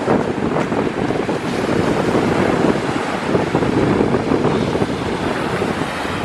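Strong north wind buffeting the camera's microphone in a steady, heavy rush of noise, mixed with surf breaking on the shore.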